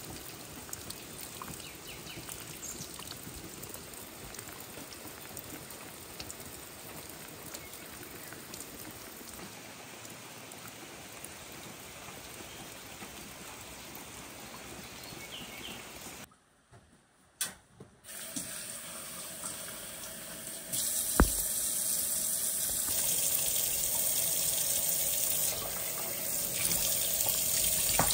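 Steady rain for about the first sixteen seconds. After a brief near-silent break, a sharp click, then a kitchen tap runs steadily into a stainless-steel sink, louder than the rain.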